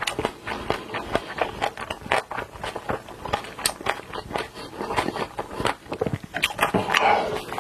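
A person chewing and biting food close to the microphone: a quick, uneven run of wet clicks and smacks.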